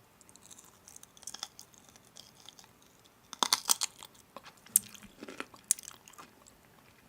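Crisp crunching and sharp clicks, sparse at first, then a dense cluster a little past the middle, followed by two single sharp clicks.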